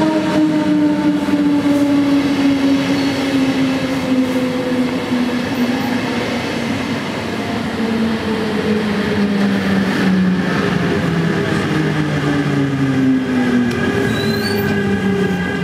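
Double-deck electric S-Bahn train with Re 450 locomotives passing along a station platform. The electric drive whines in several tones that fall slowly and steadily in pitch as the train slows, over a steady rumble of wheels on rails.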